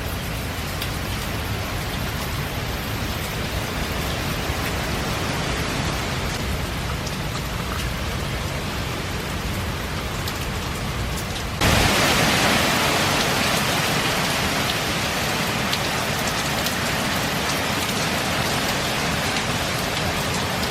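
Heavy hurricane rain pouring steadily. About halfway through it abruptly becomes louder and hissier, and stays so.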